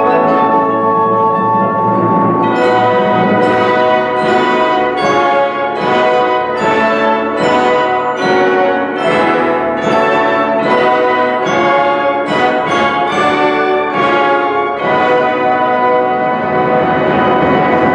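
A wind band playing loud sustained chords with brass and percussion, punctuated by repeated sharp percussion strikes from about two and a half seconds in until about fifteen seconds in.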